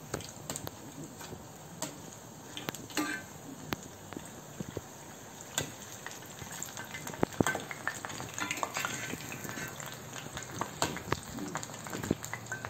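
Batter-coated chillies (chilli bajji) deep-frying in hot oil in a kadai, sizzling steadily. Scattered sharp clicks come as a perforated steel ladle turns them against the pan.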